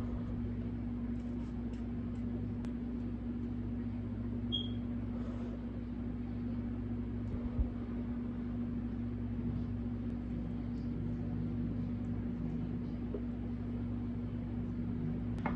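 A steady low mechanical hum with a few faint clicks and a short knock partway through.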